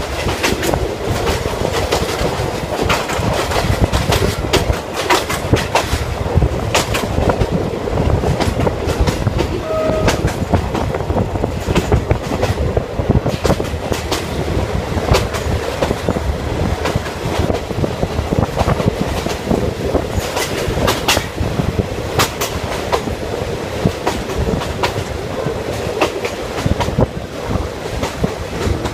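State Railway of Thailand ordinary passenger train running at speed, heard from inside the carriage: steady rumble of the wheels with frequent sharp clicks and clatter as they cross rail joints.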